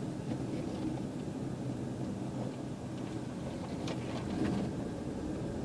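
Car running at low speed heard from inside the cabin: a steady low engine and road hum, with a couple of faint clicks about four seconds in.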